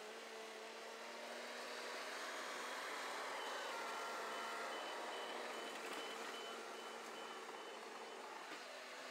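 Crawler dozer running while building a water bar, its engine swelling about two seconds in, with its backup alarm giving a steady run of evenly spaced high beeps for about four seconds from the middle on.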